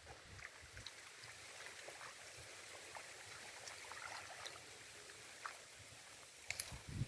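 Faint flowing water, a steady rush, with scattered small clicks and a cluster of louder clicks near the end.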